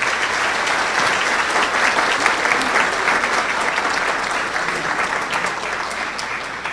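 Audience applauding: many hands clapping in a dense, steady patter that slowly tapers off toward the end.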